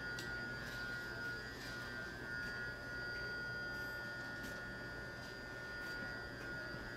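Shinano Railway SR1 series electric train creeping slowly past, its electrical equipment giving a steady high-pitched whine of several close tones over a low rumble, with a few faint clicks.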